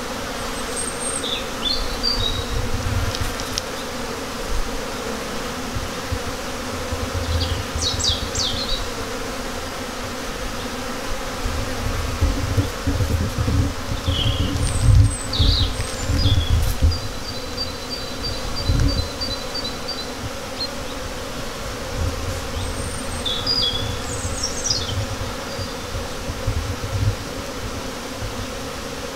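Honeybees buzzing in flight in front of the hive entrances, a steady hum throughout. Birds chirp now and then, with a short trill about two-thirds of the way through, and irregular low rumbles come and go, strongest near the middle.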